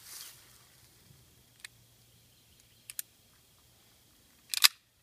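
Taurus PT-92AF pistol being handled: a few light clicks, then a sharp double metallic clack near the end as the slide is worked, while the shooter checks whether a round has been chambered.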